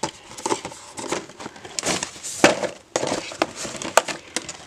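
Gift packaging being handled: plastic crinkling and cardboard boxes rustling and knocking, with irregular crackles and clicks.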